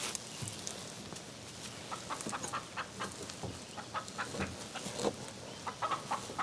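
Chickens clucking in a run of short, quick notes from about two seconds in. Under them is a soft rustle of moss being pushed into the gaps of a log wall.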